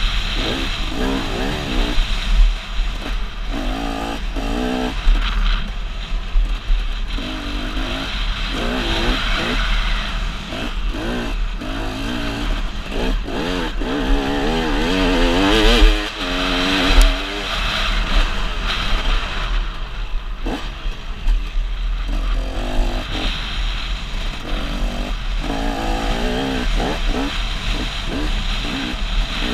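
Motocross bike engine revving under hard riding, its pitch climbing and dropping over and over with throttle and gear changes, heard from a helmet-mounted camera.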